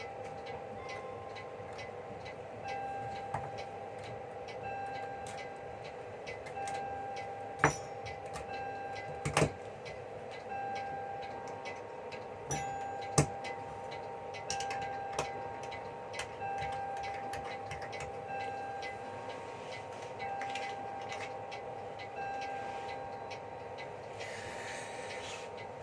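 Small sharp clicks and taps from a 395 watch battery being fitted into a quartz wristwatch movement, three of them louder than the rest, over a steady background hum.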